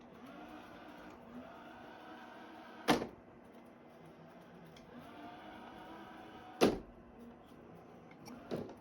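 Robot vacuum cleaner running with a steady motor hum and a faint whine that rises as it drives, bumping hard into an obstacle about three seconds in and again about six and a half seconds in, with a lighter knock near the end.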